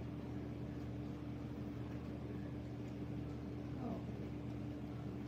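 Steady low room hum with a faint constant tone, and no speech.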